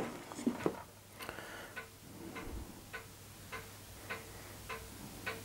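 Steady, even ticking, a little under two ticks a second, each tick with the same small ring. A single sharp knock at the very start is the loudest sound.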